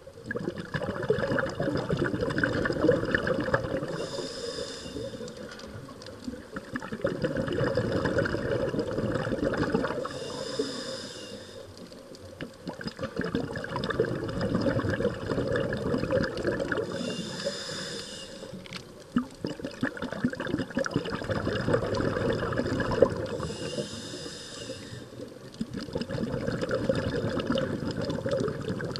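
A scuba diver breathing through a regulator underwater: a short hiss of inhalation about every six to seven seconds, four in all, each followed by several seconds of bubbling exhalation.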